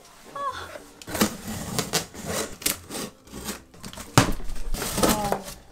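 Large cardboard shipping boxes being handled and opened: cardboard scraping and rubbing with scattered knocks, and one loud thump about four seconds in.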